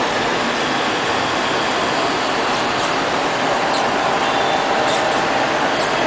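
LL-306 robot vacuum cleaner running: a steady whir from its suction fan and brushes, with a few faint light ticks.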